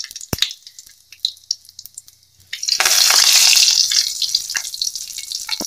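Mustard seeds popping in hot coconut oil in an aluminium kadai. About two and a half seconds in, a loud sizzle starts as curry leaves hit the oil, easing into crackling.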